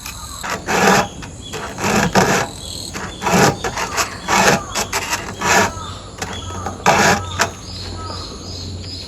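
Round chainsaw file rasping across the steel cutter teeth of a chain, in repeated strokes about once a second, as the teeth are sharpened one after another.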